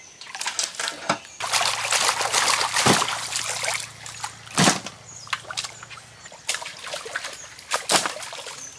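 Water splashing and sloshing in large metal tubs as live spiny lobsters are rinsed and moved by hand, loudest from about one and a half to four seconds in. A few sharp knocks against the metal vessels and smaller clicks come through it.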